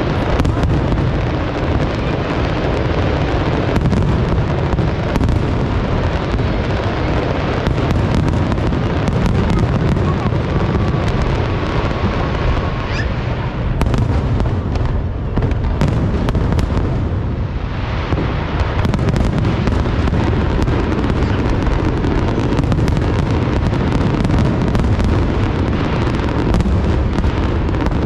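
Aerial fireworks exploding in quick succession: continuous, overlapping booms with sharp cracks and pops.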